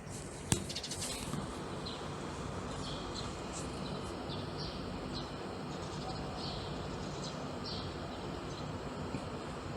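Small birds chirping outside a window: short, high chirps repeating every second or so over a steady low background hum. A single sharp click comes about half a second in, followed by a brief patch of rapid ticking.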